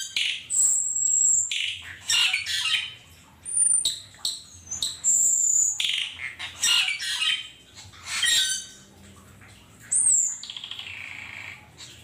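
A flock of Asian glossy starlings calling, an overlapping mix of sharp, high whistles, some of them gliding, and squeaky, harsh chatter that comes in rapid bursts.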